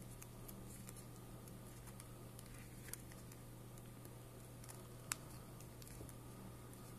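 Faint handling of origami paper as it is folded by hand: light scattered taps and crinkles, with one sharper tick about five seconds in.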